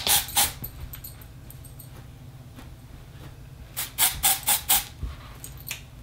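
Aerosol dry shampoo sprayed in short hissing spurts at the hair roots: a few right at the start, then four more in quick succession about four seconds in and two soon after.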